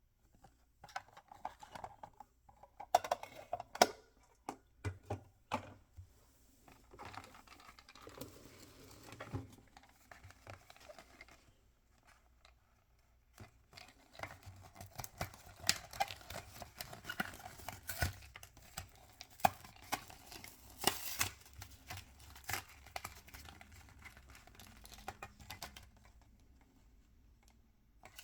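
Toy blind-pack packaging being opened and handled by hand: irregular plastic crinkling, tearing and rustling, with small sharp clicks and taps. There is a short pause about halfway through.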